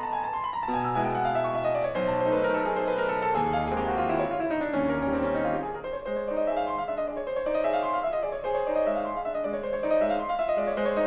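Background piano music: a falling run of notes, then a rolling figure that rises and falls about once a second over held low notes.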